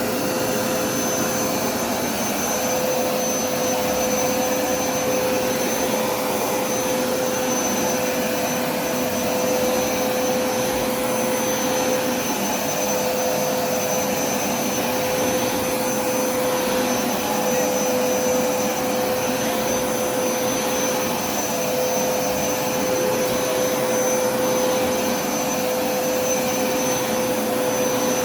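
Hoover SmartWash carpet washer running in dry mode, its suction motor pulling the water back up out of the carpet: a steady rush of suction with a constant whine over it.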